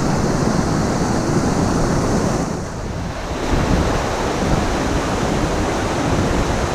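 Stream water rushing steadily over rocks at a small rapid and waterfall, with wind rumbling on the microphone. It drops a little for a moment about three seconds in.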